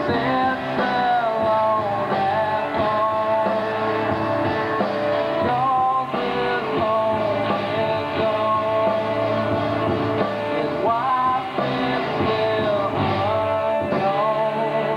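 A live rock band playing: a male singer over electric guitars and a drum kit, loud and steady.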